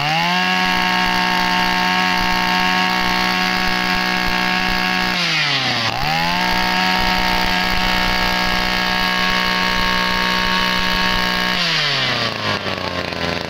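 Zenoah 23cc two-stroke brush cutter engine revved to full throttle and held steady for about five seconds. It drops back briefly near the middle, revs up again for another five seconds, then falls back toward idle near the end.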